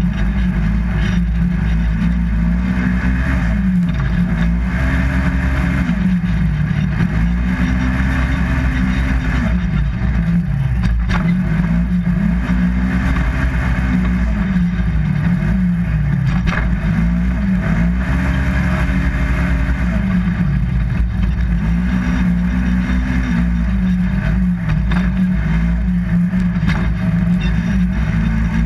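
Polaris RZR 1000 XP side-by-side's twin-cylinder engine under race throttle, its revs climbing and dropping again every two to three seconds as it accelerates and lets off around the track, with a few sharp knocks from the machine.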